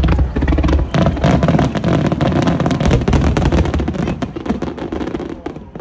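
Aerial firework shells bursting in a rapid barrage: many booms and sharp bangs overlapping into a continuous rumble, tailing off near the end.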